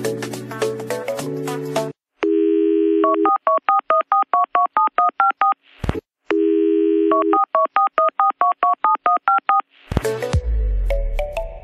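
A telephone dial tone followed by a quick run of touch-tone keypad beeps dialing a number, heard twice with a click between; background music plays before it, and near the end a whoosh with a falling sweep leads back into music.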